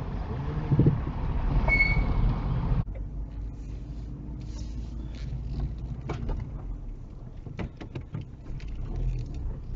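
Low engine and road rumble from inside a slow-moving car, picked up by a dash cam. There is a short high beep about two seconds in, and the rumble gets quieter after about three seconds, with scattered light clicks and knocks.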